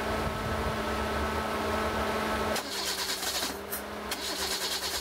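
Toyota 1SZ-FE four-cylinder engine running at idle with its throttle body freshly cleaned and the air filter off. About two and a half seconds in the sound changes, and a fast-pulsing hiss joins the steady engine note. The engine is misfiring, which the mechanic puts down to the unplugged connector that belongs on the air filter box.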